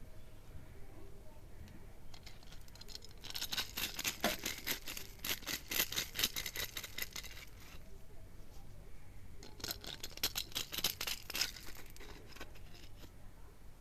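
Hand-held corn sheller stripping kernels off a maize cob: a rapid crackle of kernels snapping loose and pattering onto the pile of shelled corn. It comes in two bursts, one starting about three seconds in and lasting about four seconds, a shorter one near ten seconds in.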